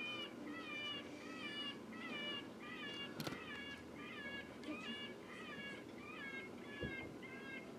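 Electronic predator call playing a distress cry over and over, about two short, high-pitched wavering wails a second, each one the same: a coyote-calling sound.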